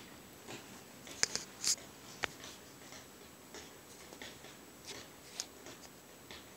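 Quiet room tone with faint scattered clicks, ticks and scuffs from two puppies moving about on rugs and floor and from the phone being handled. A handful of sharper ticks fall between about one and two and a half seconds in, and one more about five and a half seconds in.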